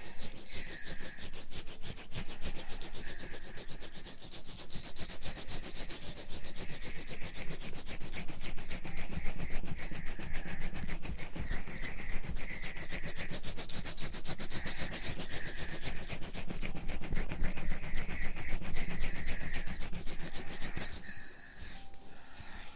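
Close-up ASMR ear rubbing: continuous, fast rubbing and scratching right against the microphone, which stops shortly before the end.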